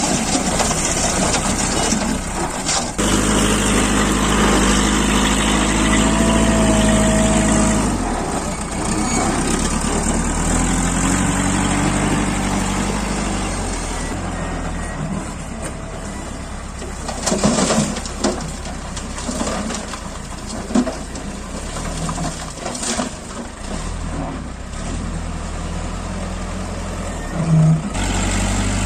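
JCB backhoe loader's diesel engine running and working, its pitch rising and falling several times as the loader dumps soil and manoeuvres. A few short knocks and clanks come about halfway through and again near the end.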